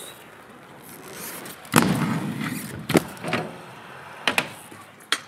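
Sharp knocks and thuds of hard wheels landing and rolling on concrete. The loudest comes just under two seconds in and is followed by a short rolling rumble, with smaller clacks near three, four and five seconds.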